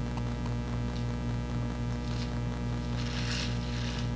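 Steady electrical mains hum, with short sucking hisses about two seconds in and again near the end as water is sipped through a straw from a cup of ice water.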